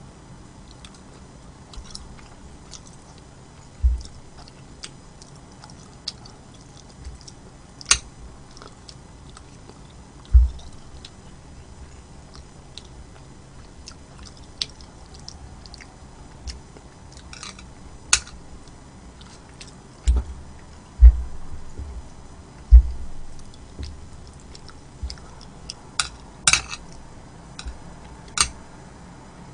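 Close-miked chewing of food in the mouth, with scattered sharp clicks and a few short low thumps, the loudest coming a little past the middle.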